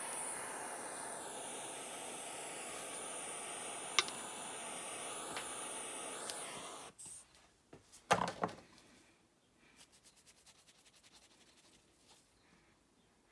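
Small handheld gas torch hissing steadily while heating a brass shell casing to melt solder, cutting off about seven seconds in. A short cluster of knocks follows about a second later, then faint ticking.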